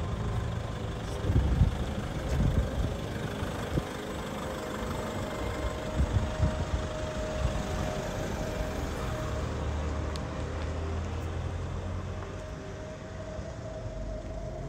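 A road vehicle's engine running with a steady low hum, with a few short thumps in the first few seconds.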